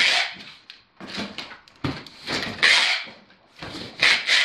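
Packing noises: a cardboard box and plastic bags being handled as a parcel of dried wood ear and mushrooms is packed, in several separate bursts of rustling and scraping.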